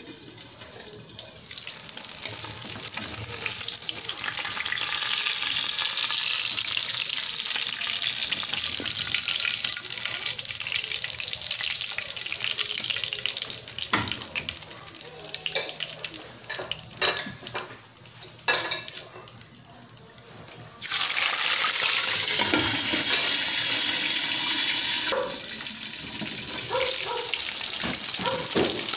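Boneless milkfish frying in hot oil in a wok: a steady sizzling hiss with scattered pops of spattering oil. The sizzle dies down for a few seconds, then jumps back loud suddenly about three-quarters of the way through, as a fresh piece of fish goes into the oil.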